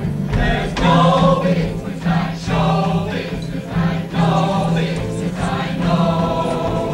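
A mixed chorus of men and women singing together on stage, in phrases over a steady musical accompaniment.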